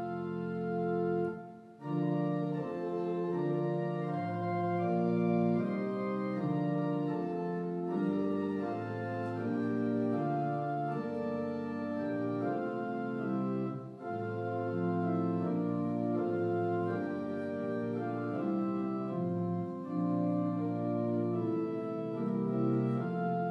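Church organ playing the postlude: sustained chords that change every second or so, with a brief break about a second and a half in.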